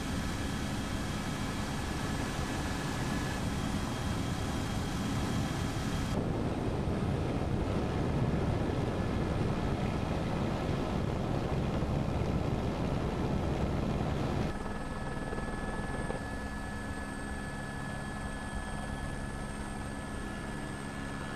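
Rally engines running steadily in race footage, with the sound changing abruptly where shots are cut together, about six seconds in and again about fourteen and a half seconds in.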